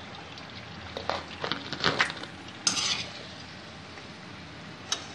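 Wire-mesh skimmer scraping and clinking against a metal kadhai while lifting fried snacks out of hot oil, with the oil sizzling faintly underneath. The knocks come in a cluster between about one and three seconds in, with one more near the end.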